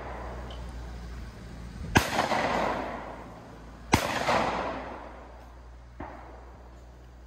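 Two shotgun shots about two seconds apart, each followed by a rolling echo that dies away over about a second; a much fainter crack follows near the end.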